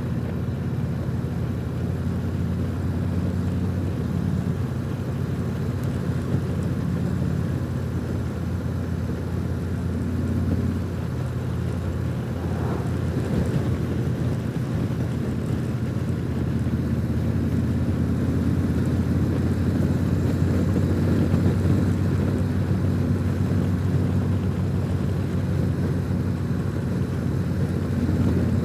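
Harley-Davidson Tri-Glide trike's V-twin engine running under way at road speed, a steady drone whose pitch shifts a little several times and grows slightly louder in the second half.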